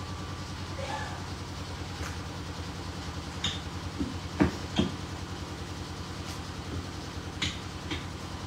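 A household machine running with a steady low hum and a fast, even rumble; the owner says it has become very noisy after a repair, for reasons she doesn't know. A few light clinks and taps from work at the kitchen counter come about halfway through and again near the end.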